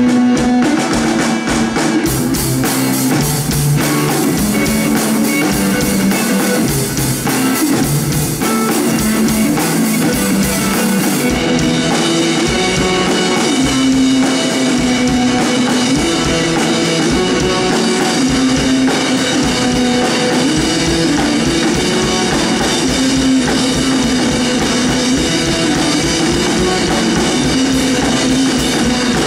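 Rock band playing live without singing: electric guitar riffing over a Tama drum kit keeping a steady beat.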